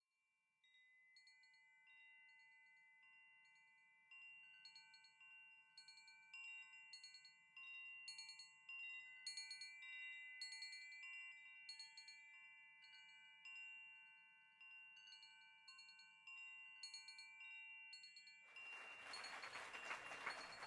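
Quiet wind chimes ringing, many struck metal notes overlapping and sustaining. Near the end a hiss of broad noise swells in beneath them.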